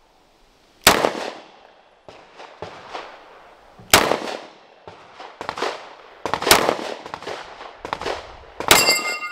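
9mm Canik Mete MC9 pistol shots: four loud, sharp cracks spaced a few seconds apart, with fainter cracks in between. Just after the last shot, a steel Texas Star plate rings with a clear metallic tone as it is hit.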